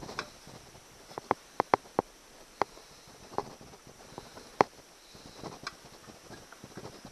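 Irregular light clicks and knocks of metal outboard housings being worked against each other as the Honda 8 hp midsection is fitted back into place, the loudest about a second and a half and four and a half seconds in.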